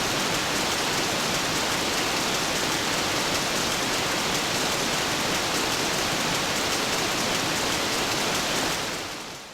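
Steady, even hiss of heavy rain falling, fading out over the last second or so.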